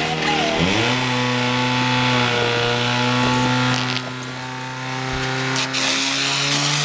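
Portable fire pump's engine revving up during the first second, then held at a steady high speed as it pumps water through the hoses. A hiss of water spray from the nozzles joins near the end.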